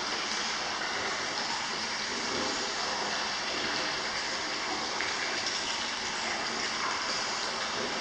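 Steady rush of running water at a rock-lined hot spring bath.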